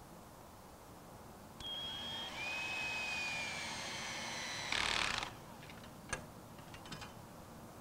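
Power screwdriver driving a 1 1/4-inch screw through a metal connector plate into a wooden sidewall base. The motor whine starts about a second and a half in, drops in pitch and slowly sags as the screw bites. A short, louder rasp follows at about five seconds, then the driver stops and a few light clicks follow.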